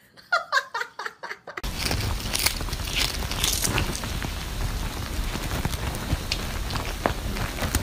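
A few short high vocal sounds, then a sudden change about a second and a half in to a steady hiss full of crisp clicks and crackles: a cat crunching and chewing a small dried fish held in its paws.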